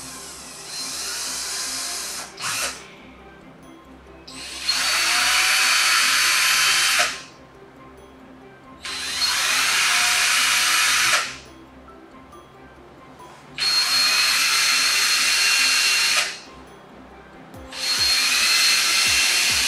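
Cordless drill boring holes through a plastic water pipe, in about five separate runs of two to three seconds each. Each run spins up with a rising whine to a steady high-pitched drilling sound, then stops.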